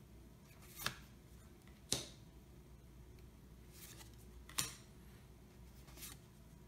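Yu-Gi-Oh! trading cards flipped through one at a time by hand, each card slid off the stack with a short crisp snap. Three louder snaps and a couple of fainter ones come a second or two apart.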